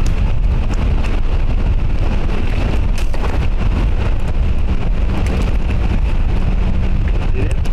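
Wind buffeting the microphone: a steady, loud, rough rumble.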